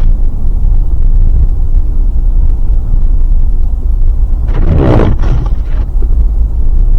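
Heavy, steady low rumble of storm wind buffeting the microphone in a snowstorm. About four and a half seconds in, a louder sound lasting about a second rises over it.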